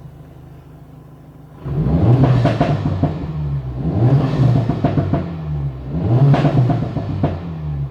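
Turbocharged 2.0-litre four-cylinder Honda engine idling, then revved three times about two seconds apart, its pitch climbing and falling back with each blip.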